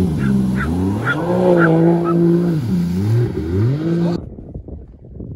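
Jet ski engine revving, its pitch rising and falling several times, cutting off sharply about four seconds in; faint scattered ticks follow.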